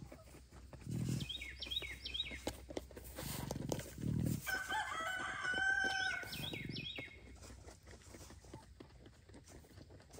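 A rooster crows once, a single long call about halfway through. Short high bird chirps sound before and after it, over a scatter of small crunching clicks from Patagonian cavies (maras) chewing romaine lettuce.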